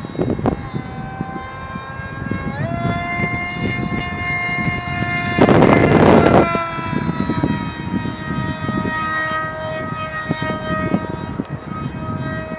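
Electric brushless motor and propeller of a radio-controlled foam F-22 jet, whining at a steady pitch in flight and stepping up in pitch about two and a half seconds in as the throttle opens. About five and a half seconds in, a loud rush of wind noise swamps the microphone for about a second.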